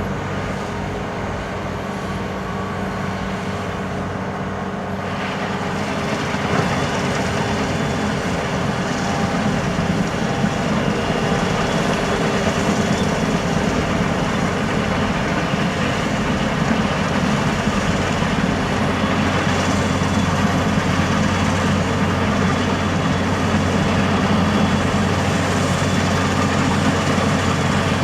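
A large road vehicle's engine running steadily under a broad mechanical rush that grows louder after about six seconds, typical of a snow-clearing vehicle at work.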